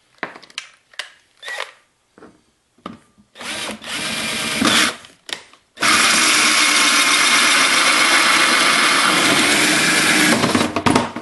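Power drill with a hole saw cutting a hole through a plastic tote lid: a short run of about a second and a half a few seconds in, then a steady cut lasting about four and a half seconds that stops near the end. Light clicks and knocks of handling come before the drilling.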